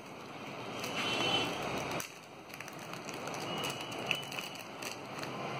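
Plastic packaging crinkling and rustling as hands peel open a postal mailer and handle the clear inner bag, with many small crackles.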